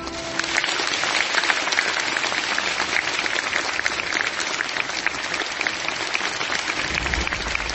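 A large audience applauding, a dense steady patter of clapping that takes over as the last note of a choral song fades in the first half-second.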